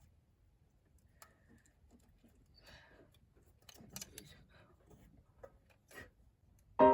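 Scattered faint clicks and light knocks, a few at a time, then piano music starting right at the end.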